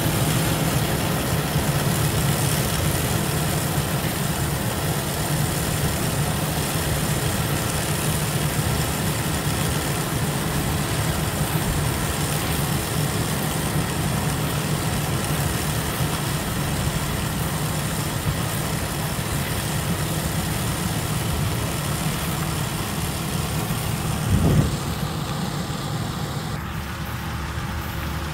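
Yanmar YH6115 rice combine harvester's diesel engine and threshing gear running steadily under load as it cuts rice, with a brief thump near the end, after which the sound fades slightly as the machine pulls away.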